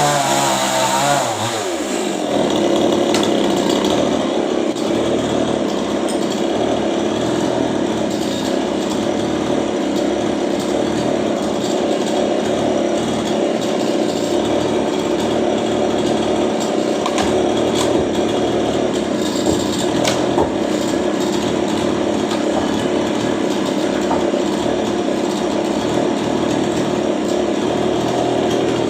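Two-stroke chainsaw engine dropping from high revs in the first two seconds, then running steadily at a lower speed.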